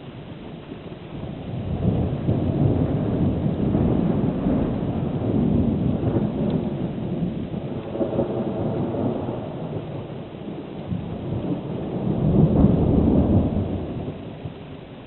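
Thunder rumbling: a long, deep roll that builds about two seconds in, rumbles on for several seconds, swells again near the end and then fades.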